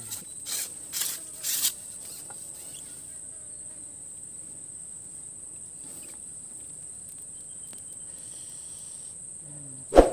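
Insects droning steadily at a high pitch, with a few brief rustling knocks in the first two seconds and a sharp loud knock near the end.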